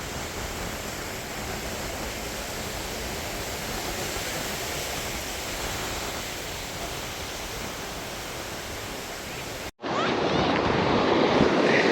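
Ocean surf washing onto the beach as a steady hiss, with wind on the microphone. Near the end the sound cuts out abruptly and returns louder.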